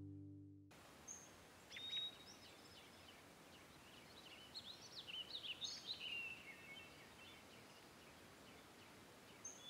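The tail of a music bed fades out within the first second. After it comes faint outdoor ambience with small birds chirping and whistling: a couple of calls early, a busier run of quick calls in the middle, and a few more at the end.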